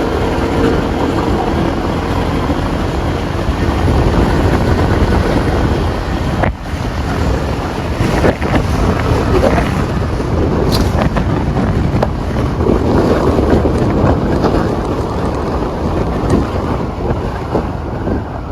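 Wind buffeting the microphone: a loud, steady rumbling noise with a brief dip about six and a half seconds in.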